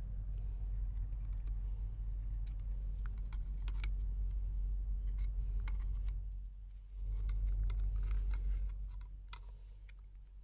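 Scattered small clicks and scrapes of a screwdriver and pick working at a black plastic lawnmower primer-bulb housing to free its retaining clip, over a steady low rumble.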